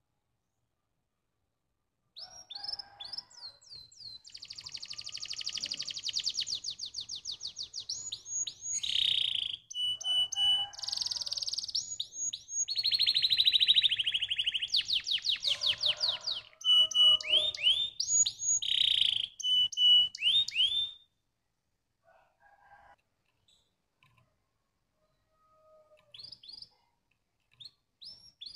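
Domestic canary singing a long song of fast trills and rolls, broken up by quick down-slurred notes and a few held whistled notes. The song starts about two seconds in and stops about twenty seconds in, followed by a few faint notes and a fresh phrase right at the end.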